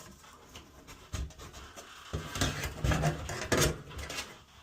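Metal bath fan housing being worked back and forth in a drywall opening: irregular scraping and dull knocks as it is forced into place.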